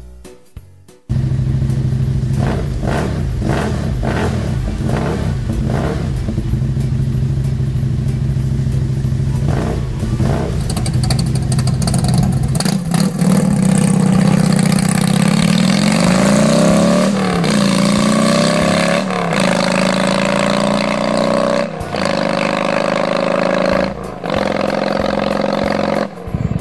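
Harley-Davidson V-twin motorcycle running at a steady low pitch, then pulling away and accelerating through the gears. The engine pitch climbs and drops sharply at each of about four upshifts.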